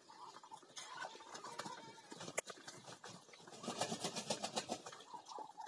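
Muscovy ducks bathing in a bucket of water: faint splashing and dabbling, with a quicker flurry of splashes about four seconds in and a few soft calls.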